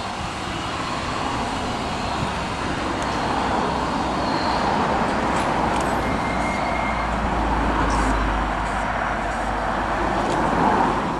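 Electric tram car running along the rails as it approaches, its wheel and running noise with a low rumble growing louder as it comes close.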